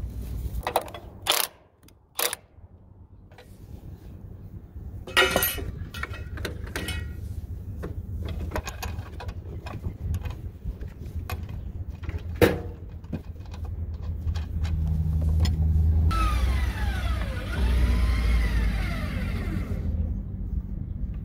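Metal clicks, clinks and knocks of a wrench, bolts and washers while a flange bearing unit is bolted onto a steel conveyor frame, over a steady low rumble. Near the end, about four seconds of hissing rush with whines that slide up and down.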